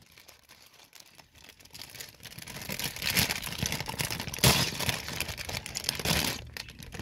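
A plastic bag of Lego pieces rustling and crinkling as it is handled, starting after about two seconds of near quiet, with louder crinkles now and then.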